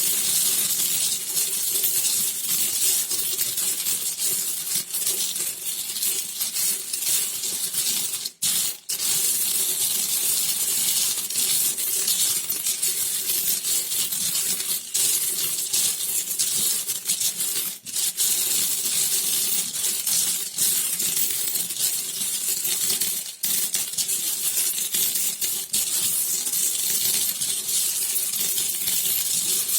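Metal coins clinking and jingling against one another in a dense, continuous jingle, breaking off briefly a few times.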